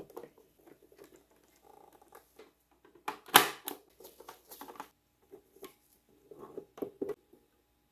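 Small plastic clicks, taps and scrapes from handling a BMW E46 instrument cluster and working at it with a small hand tool. The clicks come in scattered bursts, and the loudest one is a sharp clack about three and a half seconds in.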